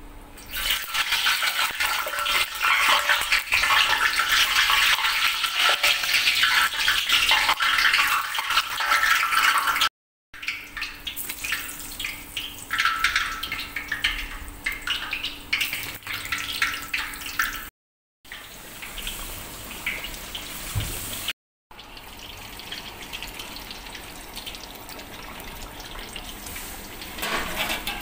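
Whole stripe-peeled eggplants deep-frying in a pot of hot oil: a loud, dense sizzle that rises sharply about half a second in and eases after about ten seconds, cut off abruptly a few times.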